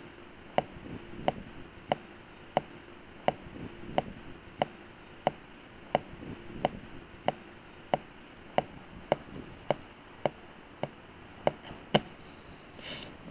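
Sharp clicks at a steady pace, about three every two seconds, over a faint low hum.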